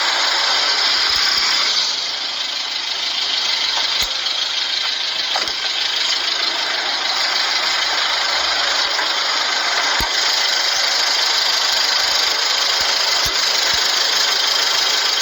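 Vehicle engine running steadily at idle with its radiator drained of coolant, a steady even noise with a few faint clicks.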